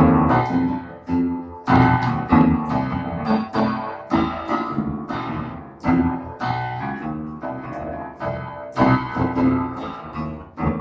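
Electronic keyboard played with a piano sound: chords struck every second or two, each left to ring and fade, in slow, unpolished practice.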